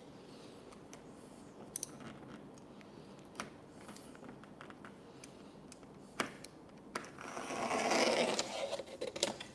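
Vinyl wrap film being handled and pressed onto a mini fridge: a few light ticks, then a scraping rub lasting about two seconds near the end.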